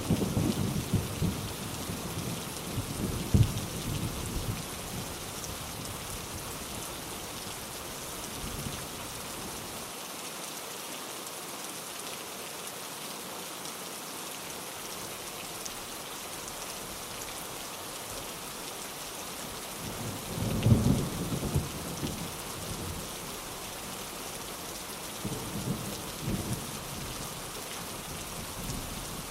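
Steady rain falling, with low rumbles of thunder: a few in the first seconds, a louder one about two-thirds of the way through, and fainter ones soon after.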